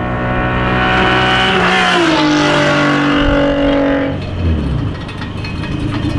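Mitsubishi FTO engine running loud at steady revs. Its pitch drops about two seconds in, then falls again and fades about four and a half seconds in as the car drives past.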